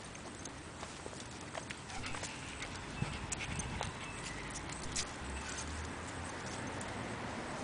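Footsteps on a concrete sidewalk, with scattered light clicks and ticks, over steady outdoor background noise.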